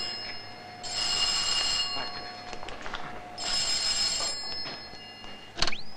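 Telephone bell ringing in bursts of about a second, twice, over a faint steady tone that stops about halfway through; a sharp click near the end.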